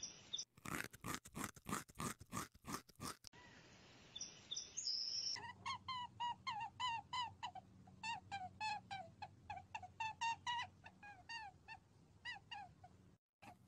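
Small animal's short squeaking calls, several a second, each dropping slightly in pitch. They follow a quick series of sharp clicking sounds in the first three seconds.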